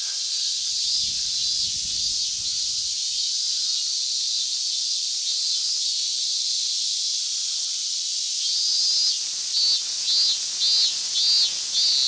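Chorus of male cicadas calling, a loud, steady high-pitched hiss from the trees. Near the end a pulsing call, about three beats a second, rises over it.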